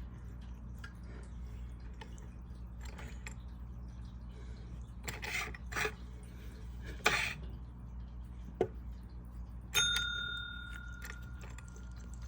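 Scattered small clicks and short rustles over a steady low hum. About ten seconds in comes a sharp metallic strike that rings on as a clear bell-like tone, fading over a couple of seconds.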